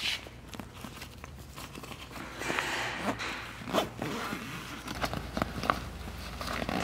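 Zipper of a vinyl rooftop-tent travel cover being pulled along in short, uneven tugs, with the stiff cover rustling under the hands. There is a longer rasping pull about two and a half seconds in.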